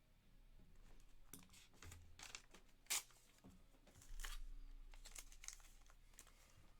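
Faint rustling and crinkling as trading cards and their packing are handled, with one sharper click about three seconds in.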